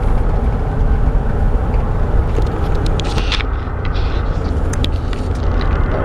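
Car driving along a road: a steady low rumble of engine and tyres, with a few light clicks around the middle.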